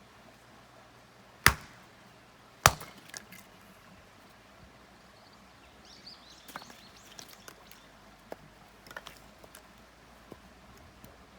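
Firewood being split by hand: two sharp chopping strikes of a blade into wood, about a second and a half in and again a second later, followed by scattered light knocks and clicks of pieces of wood.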